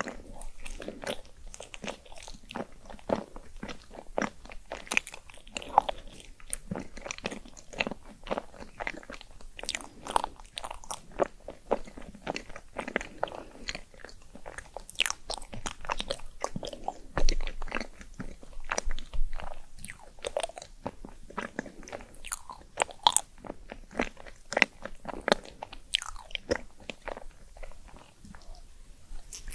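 Close-miked eating ASMR: a person biting and chewing crisp food, with many sharp crunches several times a second mixed with softer wet chewing.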